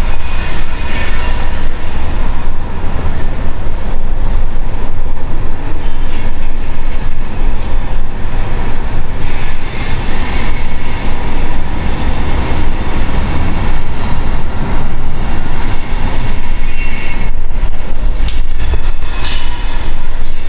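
Loud, continuous rumbling noise with a heavy low end, holding steady, with a few sharp knocks near the end.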